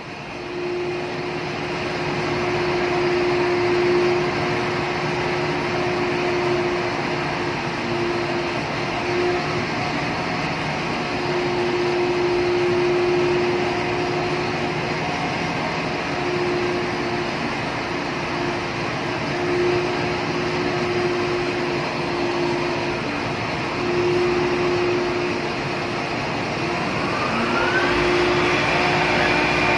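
Steady ship engine-room machinery noise: a constant mechanical hum with a steady tone that fades in and out. About 27 seconds in, a rising whine as an electric motor spins up.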